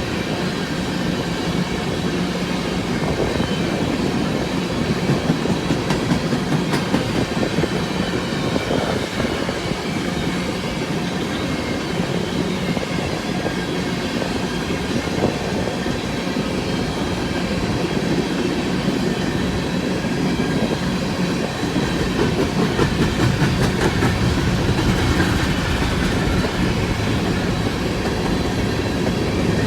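Empty coal hopper cars of a freight train rolling past, wheels clicking over the rail joints in a steady, continuous clatter.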